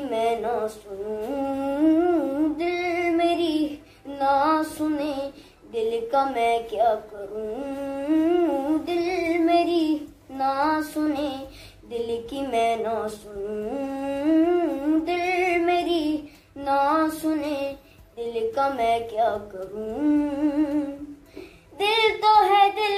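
A boy's high voice singing a slow, ornamented melody in phrases of a few seconds, with short breaks between them. He sings unaccompanied.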